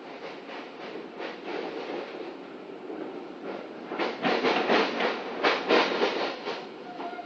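Passenger train wheels clattering over rail joints, heard from inside a moving coach over a steady running rumble. A louder, quicker run of clacks comes a few seconds in.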